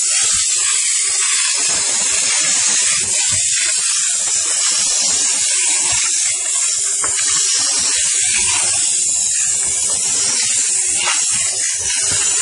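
Steam car-wash machine's upholstery nozzle jetting steam against a car seat: a steady, loud hiss with spitting crackles. It starts abruptly at the beginning, and a faint steady hum runs underneath.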